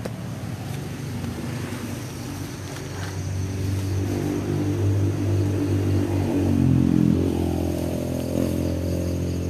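A motor vehicle's engine passing: it grows steadily louder over several seconds, is loudest about seven seconds in, and its pitch slides down as it goes by.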